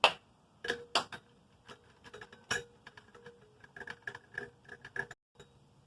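Irregular small metallic clicks and clinks from hands working on a ceiling fan's screws and fittings as it is taken apart. The sharpest click comes right at the start.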